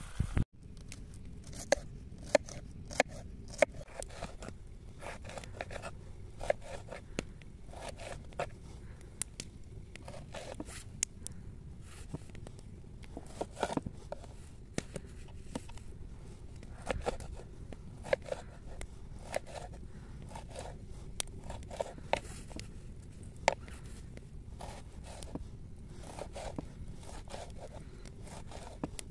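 Kitchen knife slicing tomatoes on a wooden cutting board: the blade taps the board unevenly, one or two times a second.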